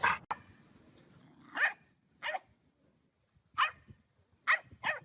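A dog barking: five short, separate barks with pauses between them, the last two close together near the end.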